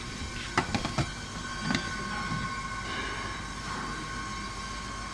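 Chili pepper colour sorting machine running: a steady mechanical hum with a high, steady whine, and a few sharp clicks in the first two seconds.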